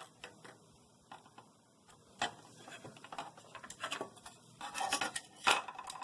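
Scattered light clicks and clatter of a circuit board and small metal tools being handled on a wooden desk. They are sparse at first and busier in the second half, with the loudest knock about five and a half seconds in.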